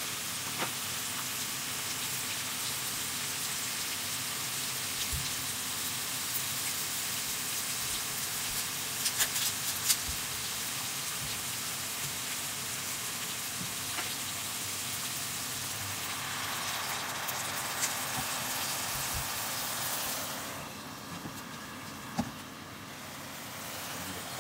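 Thin slices of marbled beef sizzling in a sukiyaki pan: a steady frying hiss with a few light clicks around nine to ten seconds in. The sizzle turns quieter about twenty seconds in.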